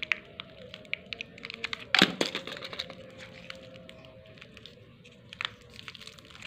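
Crinkling and crackling of a plastic snack packet being handled, with a sharper crack about two seconds in.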